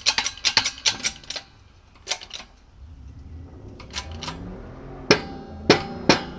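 Steel bearing-press adapter discs clicking and clinking against each other in their plastic case as they are picked through. There is a quick run of light clicks in the first second or so, then single clinks every second or so, the loudest two near the end.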